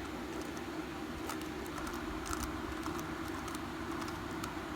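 Faint, irregular plastic clicks of a 3x3 puzzle cube's layers being turned by hand, over a steady low hum.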